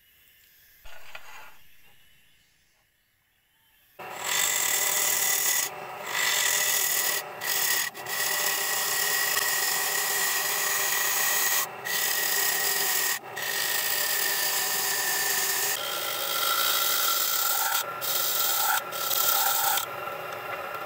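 A gouge cutting into a wooden disc spinning on a wood lathe: a loud, steady scraping rasp with a steady whine in it. It starts about four seconds in and is broken by several brief gaps.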